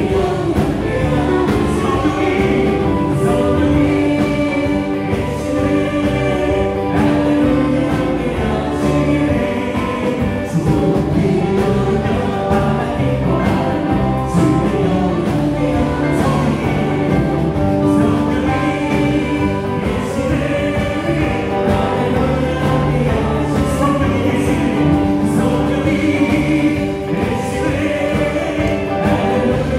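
Live praise-and-worship music: a band of electric guitar, bass guitar, keyboards and drums playing steadily, with a group of voices singing along.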